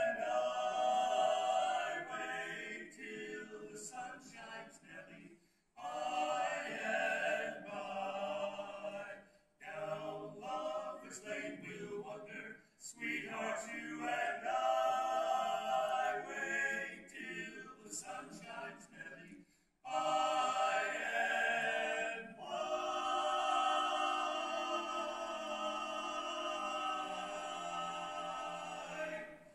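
Male vocal quartet singing a cappella in four-part harmony, in phrases with short breaks between them.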